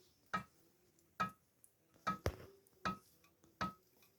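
Camshaft knocking in the worn bearing beds of a ZMZ 405 cylinder head as it is rocked: about six sharp metallic clicks, each with a short ring. The clicks come from play in the camshaft bores, which are worn so the shaft wobbles.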